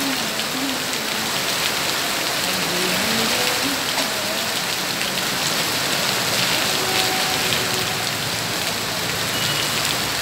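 Heavy monsoon rain pouring steadily onto a wet street, pavement and parked scooters: a dense, even hiss of falling drops that holds at the same level throughout.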